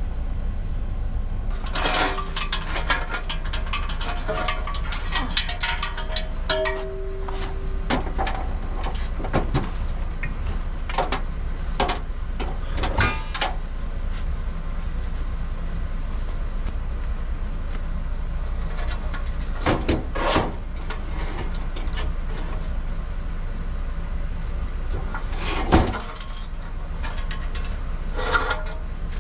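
Heavy steel fifth-wheel hitch being dragged and shifted by hand: scattered metal clanks and knocks, with a short squeal about seven seconds in, over a steady low rumble.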